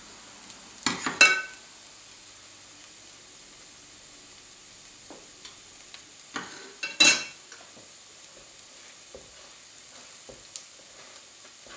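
Risotto rice simmering in broth in a stainless steel pan, a faint steady hiss, as it is ladled and stirred. Short metallic clinks of utensils against the pan come about a second in and again around seven seconds.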